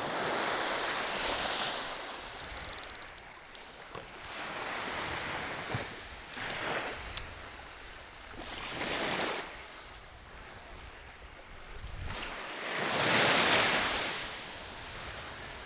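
Small waves washing up on a sandy shore, coming in several surges of wash, the biggest about thirteen seconds in, with light wind on the microphone. A single brief click sounds about seven seconds in.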